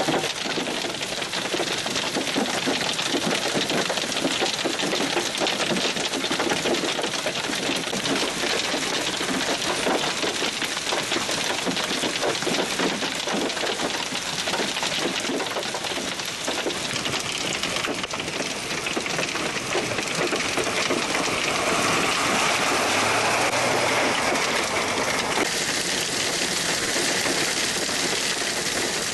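Heavy hail, stones about an inch across, pelting down in a dense, steady clatter of countless small impacts.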